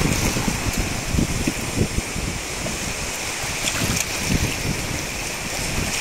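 Shallow waves washing in over a sandy beach, a steady rushing wash of water, with wind buffeting the microphone.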